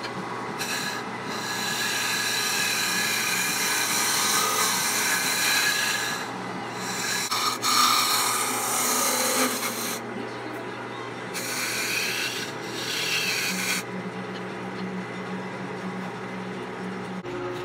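Turning gouge cutting the inside of a spinning oak bowl on a wood lathe: a scraping hiss that comes in passes, over the steady hum of the lathe motor. The cuts pause several times, and near the end mostly the motor hum is left.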